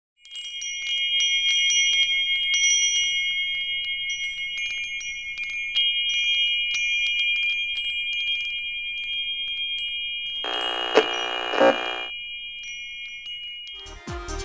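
Intro sound of tinkling chimes over held high tones, with a brief pitched swell and two accents about ten and a half to twelve seconds in. Music with a steady low beat starts near the end.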